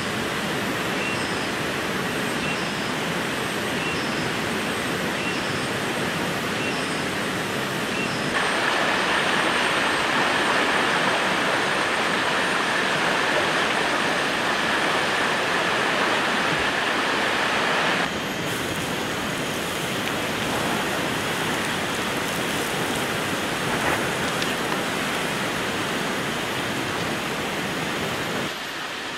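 Rushing water of a jungle stream and small waterfall: a steady hiss that steps louder about eight seconds in and eases back about eighteen seconds in. Faint high chirps repeat about once a second during the first several seconds.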